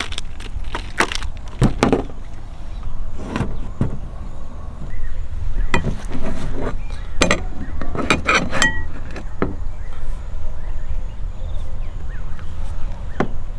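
Scattered clinks and knocks of hard items being handled and set down, some in quick clusters, over a steady low rumble.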